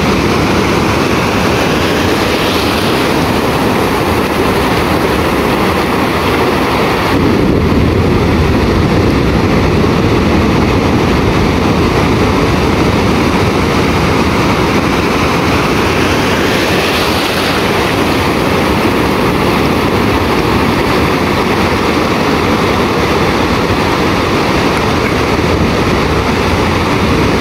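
Ocean surf breaking and washing in: a loud, steady roar of waves that swells a little as the bigger breakers come in.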